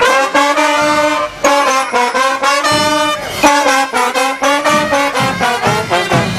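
A parade band's brass, trumpets and trombones, playing a tune in loud held notes.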